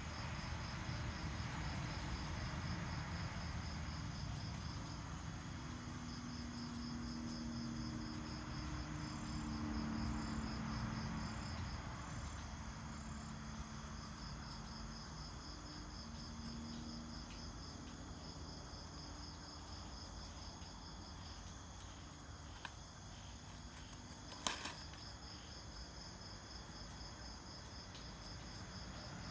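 Night insects chirping: a high, rapidly pulsed chirp that comes in bouts of several seconds, with a fainter higher trill joining for a few seconds in the middle, over a low steady hum. A single sharp click sounds about 24 seconds in.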